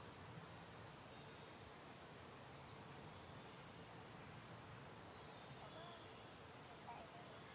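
Faint forest ambience: a steady, thin, high insect drone, with a couple of faint wavering chirps near the end.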